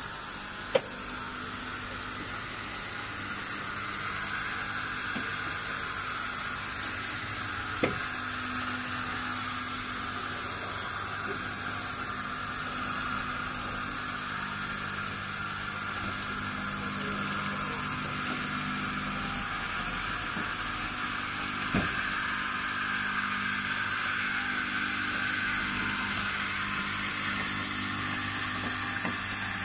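Plecobot Hax-A facade cleaning robot running on a glass facade: a steady motor hum with a hissing, sizzle-like noise like water spray. A few sharp clicks stand out over it.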